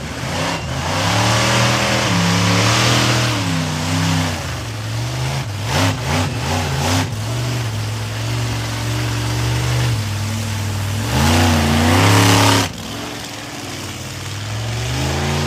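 Monster truck engine revving hard, its pitch climbing and dropping repeatedly as the throttle is worked, with a run of sharp pops or bangs in the middle. The loudest full-throttle surge comes near the end and cuts off suddenly as the throttle is released.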